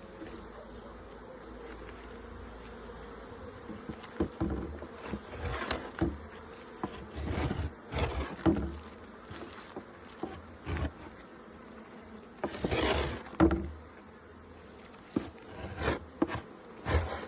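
Honeybees buzzing around an open hive. From about four seconds in there are repeated knocks and short bursts of scraping as wild comb is scraped off the wooden frames and the frames are handled.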